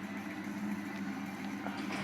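A steady low hum, one unchanging tone.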